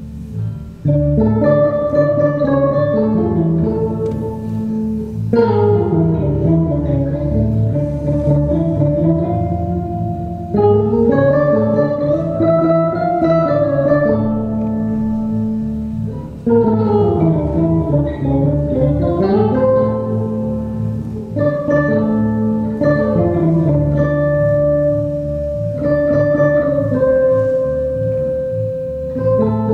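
Live instrumental duo of a plucked electric bass and an accordion: held chords under a melodic line whose notes slide up and down in pitch several times.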